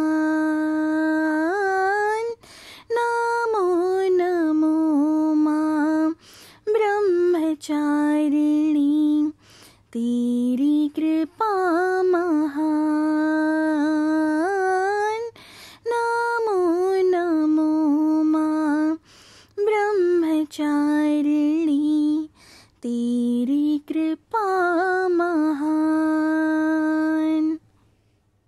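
A solo female voice singing a Hindi devotional song (bhajan), unaccompanied, in long held, gliding notes broken by short pauses; the voice stops near the end.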